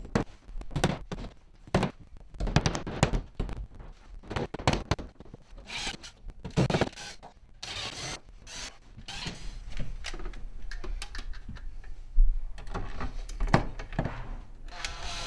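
Irregular knocks and clicks as metal plasterboard cavity fixings are set into the wall and screws are driven into them with a Makita 18V cordless driver, the screw drawing each fixing up tight behind the board; the driving gets busier in the last few seconds as screws go through a bracket.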